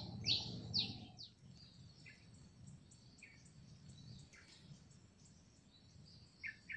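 Birds calling faintly: a quick run of high, downward-swept chirps in the first second, then scattered short calls over a faint high twittering.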